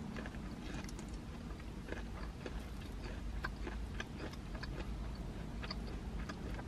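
A person chewing and biting fried street-corn ribs, a run of small irregular mouth clicks and crunches over a low steady hum.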